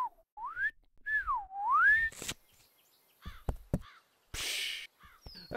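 A person whistling a few swooping notes that fall and rise in pitch, followed by a sharp click and, later, a short hiss.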